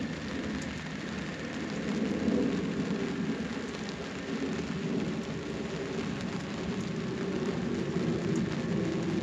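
Steady rain falling, with a low rumble that swells and fades beneath it and a few single drops ticking close by.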